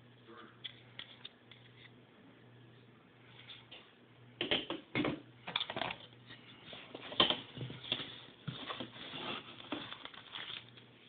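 Hands handling a cardboard phone box: a few small clicks, then irregular rustling and scraping of the cardboard flap and packaging from about four seconds in, loudest around the middle.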